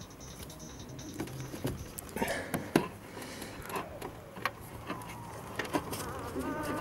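Scattered light clicks and knocks of hands working a rubber vacuum hose on the outlet pipe of an electric brake-booster vacuum pump, busiest a couple of seconds in.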